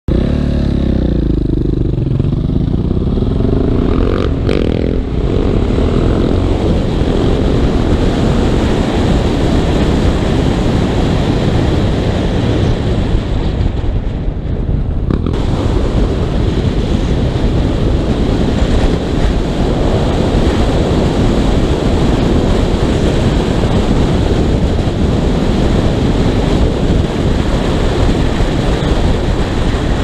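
KTM Duke motorcycle with an Akrapovic exhaust under way. The engine rises in pitch as it accelerates in the first few seconds, then runs on steadily under heavy wind rush on the helmet microphone.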